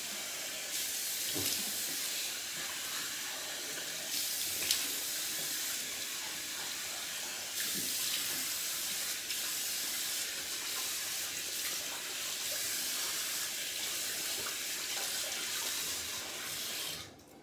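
Bathroom sink tap running steadily, with occasional splashing as the face is rinsed of shaving lather between passes; the tap is shut off near the end.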